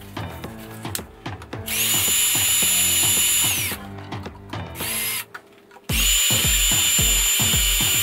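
Cordless drill driver whining as it backs out the screws of a wall socket's faceplate: one run of about two seconds, its pitch sagging as it stops, a short blip, then another steady run near the end. Background music with a beat plays underneath.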